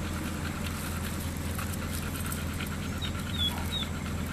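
A dog panting over a steady low rumble, with a few short high chirps about three seconds in.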